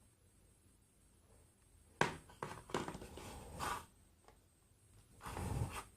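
Plastic product packaging being pried open by hand: a sharp click about two seconds in, then a few more clicks and rustling, and a heavier low rustle near the end.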